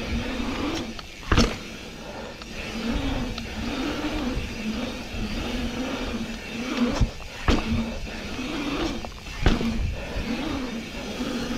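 Knobby mountain-bike tyres rolling on an asphalt pump track, their hum rising and falling in pitch as speed changes over the rollers and berms, over a rushing noise, with a few sharp clunks from the bike.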